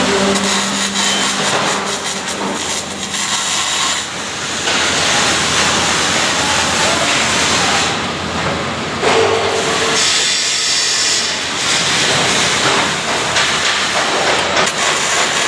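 MIG welding arc crackling and hissing steadily.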